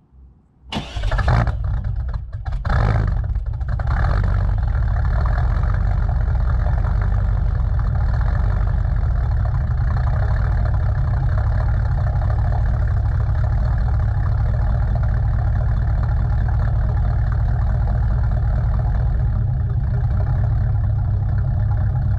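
Cold start of a 5.7-litre V8 through a 3-inch Carven TR-series performance muffler, heard at the tailpipe: it catches about a second in, surges a few times, then settles into a steady, loud idle.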